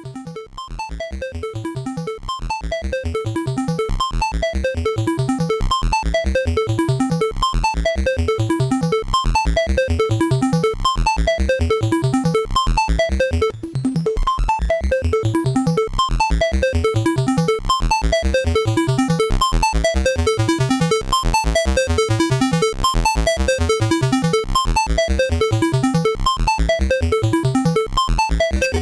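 Soulsby miniAtmegatron 8-bit Arduino synthesizer playing a fast, repeating pattern of short buzzy chiptune notes over pulsing bass notes. It swells up over the first few seconds and briefly drops out about halfway through.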